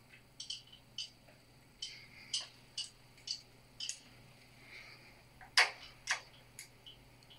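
A run of short, sharp clicks, roughly two a second and unevenly spaced, the loudest pair about five and a half seconds in, over a faint steady hum.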